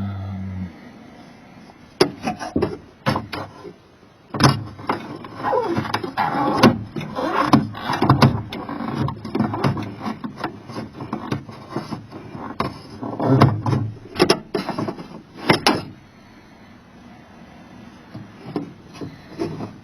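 Irregular metal clicks, clanks and squeaks of a Jeep Comanche's door handle, latch and lock rods being fitted and worked by hand, busiest from about two seconds in until near the end.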